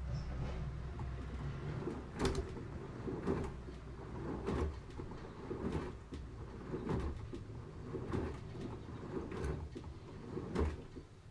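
LG direct-drive washing machine drum in its stepping motion: the drum turns in short steps, and a swish of tumbling laundry comes about once every second and a bit, roughly eight times, over a low motor hum. The steps stop just before the end.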